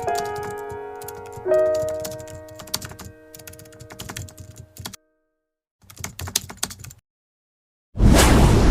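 Soft piano music with rapid clicking over it, fading out and stopping dead, then a brief return of the clicking. About eight seconds in, a sudden loud burst of noise begins and rings on.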